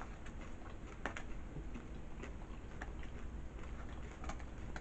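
A person chewing nachos close to the microphone: scattered small wet clicks and crunches, one a little louder about a second in.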